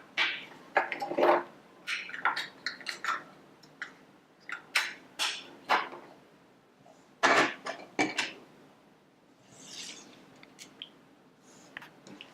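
Small plastic toy figures and toy cages being handled: irregular light clicks and clatters, with a quieter stretch after about eight seconds in.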